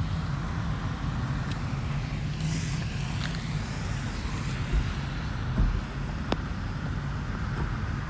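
Steady low rumble of vehicle noise with a constant low hum, and a single sharp click about six seconds in.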